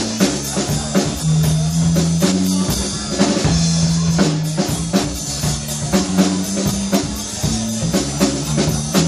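Live blues band playing an instrumental passage: drum kit keeping a steady beat, electric bass holding low notes, and electric guitar.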